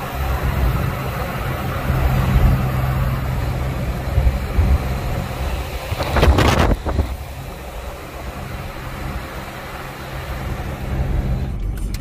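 A car driving at speed on a motorway, heard from inside: a steady rush of tyre and wind noise over a low engine rumble. About six seconds in there is a brief louder rush.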